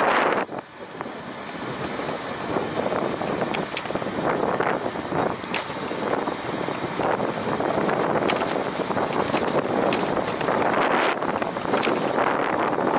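Wind rushing over the microphone while riding a bicycle, a steady noise that swells and eases, with a few short clicks.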